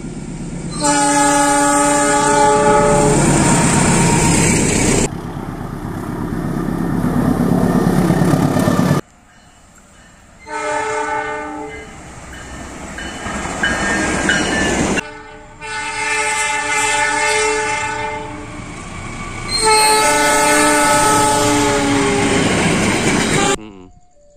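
Diesel locomotives of passenger trains sounding long multi-note horn blasts several times, with the rumble and wheel clatter of the passing trains between them. Each piece breaks off suddenly where the next one begins.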